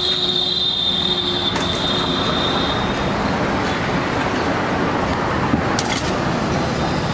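Steady street traffic noise, with a high squeal for the first three seconds or so and a few faint clicks.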